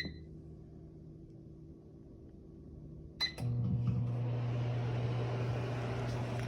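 Microwave oven keypad beep, then about three seconds in a second beep and click as the microwave starts running: a steady electrical hum with fan noise.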